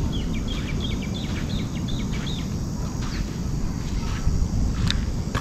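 A bird calling a quick run of about a dozen short chirps in the first two and a half seconds, over a steady low rumble. A sharp click near the end.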